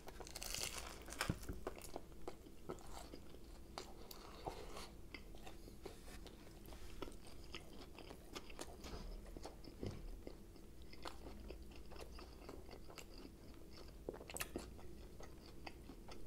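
A person biting into a giant chicken bacon club sub about half a second in, then chewing it: a run of small, irregular crunches and mouth clicks.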